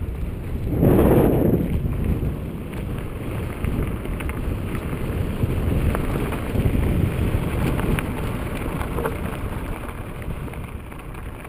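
Mountain bike descending a dirt-and-gravel trail: wind buffets the microphone over a steady rumble of tyres on dirt. A louder rush comes about a second in, and there are a few sharp clicks from stones and the bike.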